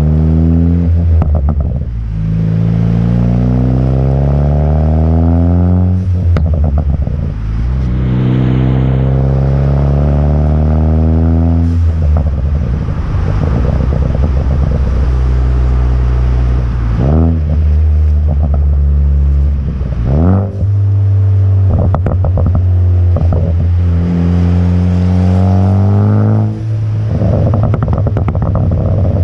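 Car exhaust through an AWE Track exhaust, pulling hard several times with the pitch climbing and then dropping away at each shift or lift. On the lifts the tuned exhaust crackles and pops on overrun, from the tune's crackle map.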